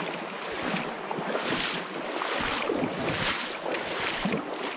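Flowing river water rushing and lapping, swelling and easing every second or so, with wind on the microphone.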